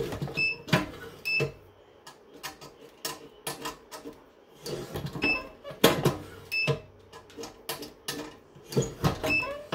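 Swing-away heat press being worked while its clamping pressure is checked: a run of sharp clacks and knocks from the handle and platen, with several short high chirps among them.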